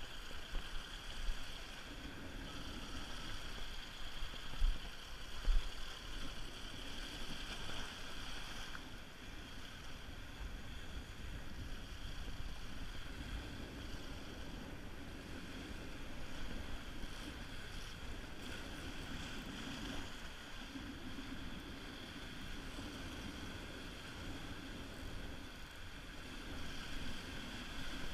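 Surf washing over rock ledges with wind rumbling on the microphone, and a spinning reel being wound in stretches. Two short knocks come about five seconds in.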